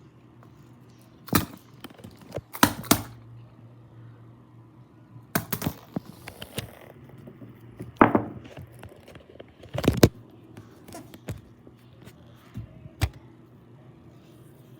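Fidget toys being handled: about six irregular bursts of sharp clicks and knocks, some in quick clusters, over a faint steady hum.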